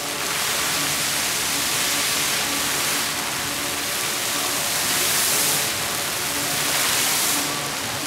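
Water jets of an illuminated mall fountain shooting up and falling back onto the fountain floor: a steady rushing splash that swells twice as the jets surge and eases off near the end as they drop.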